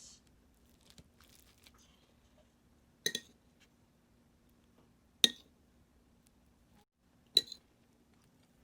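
Utensils clinking against dishes: three sharp, ringing clinks about two seconds apart, over a faint steady hum.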